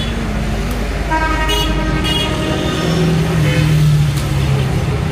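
Road traffic: a vehicle engine running steadily, with a horn sounding about a second in and lasting about a second.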